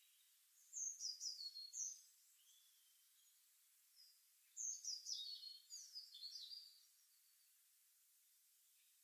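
Faint bird chirping: a quick run of short, sliding high notes about a second in, and a longer run from about four and a half to nearly seven seconds, over near silence.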